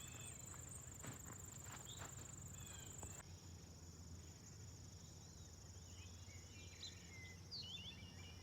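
Faint outdoor ambience: a steady, high, pulsing trill of insects, with a few faint short chirps in the second half.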